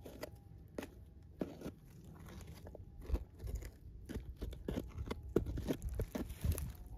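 Fingers scraping and digging through dry, loose soil: a run of irregular gritty crunches that grows busier and louder from about three seconds in.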